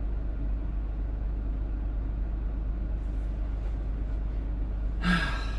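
A Scania R truck's diesel engine idling steadily at a standstill, heard from inside the cab as a low, even hum.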